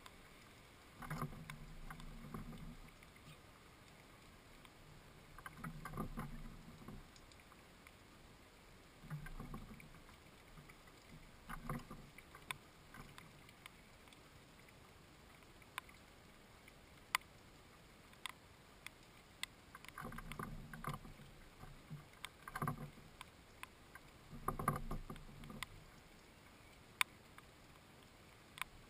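Faint scuffing and bumping from a house sparrow moving about on a wooden feeder, in bouts of a second or two every few seconds, with occasional single sharp ticks.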